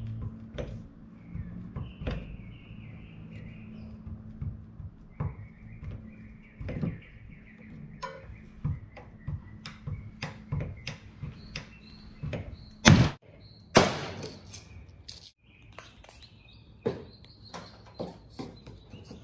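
A paintless dent repair mini lifter pulling on a hot-glued tab on a car hood: scattered clicks and creaks as its handle is squeezed, then two loud snaps about a second apart past the middle.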